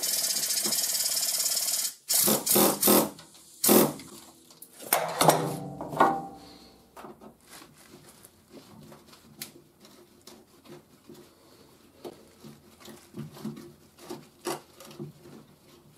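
Hand tools working at a truck fender's rusted wheel-well edge: a steady loud hiss for about two seconds, then several sharp knocks, then light scraping and clicking of a screwdriver against rusty metal.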